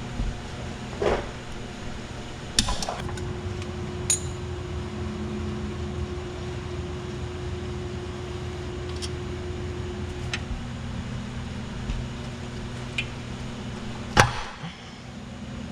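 Hand tools clanking and knocking against metal car parts during suspension disassembly: about seven scattered sharp knocks, the loudest near the end, over a steady hum.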